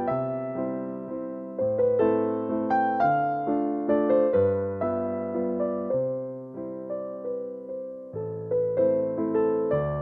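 Background music: a gentle electric piano playing a steady pattern of notes.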